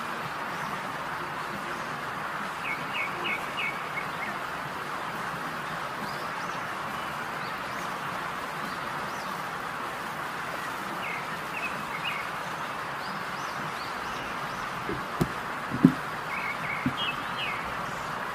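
Birds chirping in the background, in short runs of a few quick notes heard three times, over a steady hiss. Near the end come a few sharp knocks, the loudest a single thump, from the glass bowl and its plastic lid being handled.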